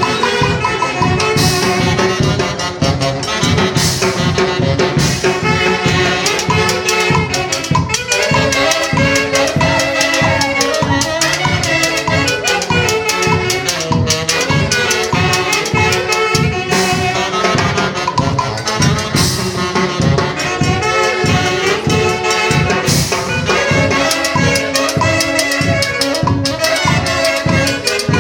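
Live dance band playing a lively tune: brass with trumpets carrying the melody over drums and cymbals keeping a steady beat.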